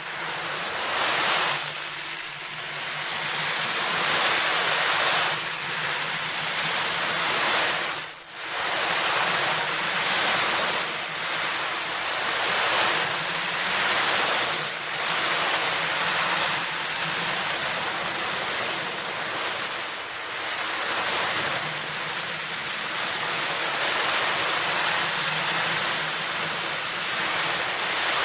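Felt ocean drum being rolled, the beads inside washing across the head in a continuous surf-like swish that swells and ebbs every few seconds, with a brief drop about eight seconds in.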